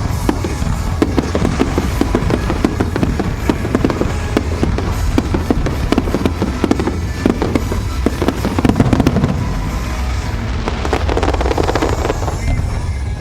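Aerial fireworks display: a dense, continuous barrage of bangs and crackles overlapping one another over a low rumble.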